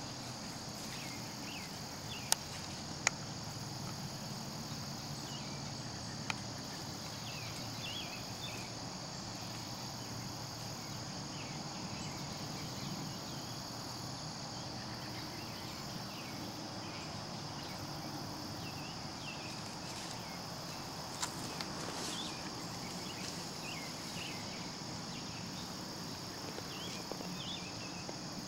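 Steady high-pitched insect chorus in the woods, broken by a few sharp clicks: two close together a couple of seconds in, one more a few seconds later, and another about two-thirds of the way through.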